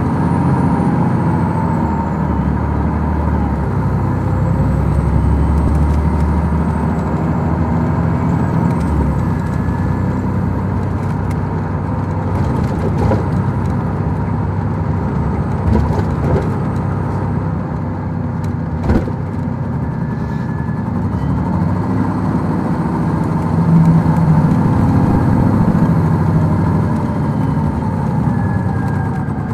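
Heard from inside the cabin of a 2002 MCI D4000 coach bus on the move: its Detroit Diesel Series 60 diesel engine running steadily, with a few sharp clicks in the middle stretch and the engine getting louder again about 24 seconds in.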